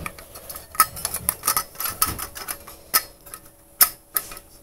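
Thin sheet-metal panels of a small folding wood/alcohol camp stove clicking and clinking as they are slotted together by hand: an irregular run of light metal clicks.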